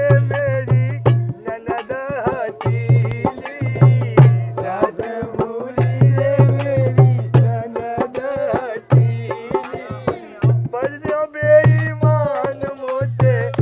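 Folk song: a voice singing a wavering melody over a hand-drum beat, with deep drum strokes in short runs and sharp higher drum slaps.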